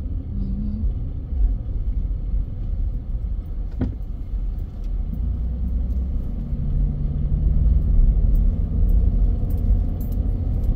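Low rumble of a car's engine and tyres on the road, heard from inside the moving car's cabin. A single click comes a little before the middle, and a faint low steady hum joins the rumble about two-thirds of the way through.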